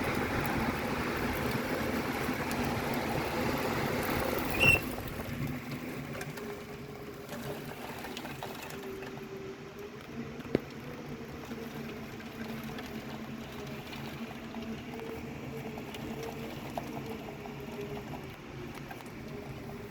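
Storm wind and rain rushing loudly for about five seconds, then a sharp click, after which the noise drops to a quieter hiss with faint wavering low tones.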